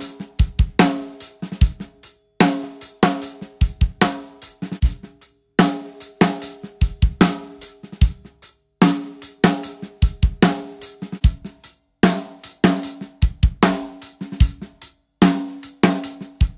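Drum kit beat of snare, bass drum and cymbals, played in short repeated passages. The snare has Evans pre-dampened coated heads: a Power Center, then a Power Center Reverse Dot, then a Heavyweight, each with a 5 mil dot in the center. Each snare hit rings briefly at a clear pitch.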